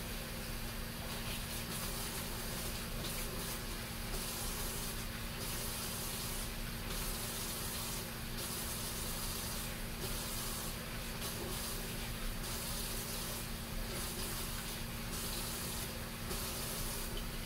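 Kitchen faucet running steadily into a sink, water splashing over potatoes being washed by hand under the stream.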